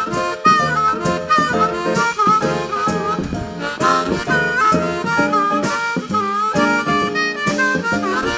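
Live blues band playing an instrumental break, led by a harmonica soloing in short bending phrases over guitar and a steady rhythm section.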